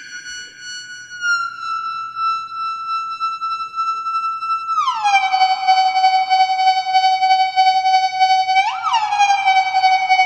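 A homemade noise-machine effects box sounding a sustained electronic tone with a theremin-like quality. The tone steps down in pitch early on and drops sharply to a lower pitch about five seconds in. It then holds there with a fast pulse, swooping briefly upward twice near the end.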